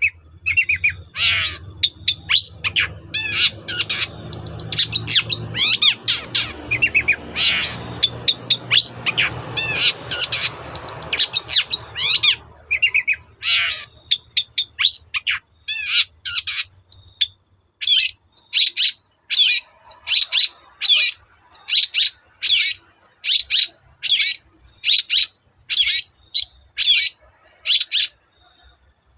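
Long-tailed shrike (cendet) singing a fast, varied chattering song, then switching about halfway to a run of short, sharp calls repeated a little under twice a second.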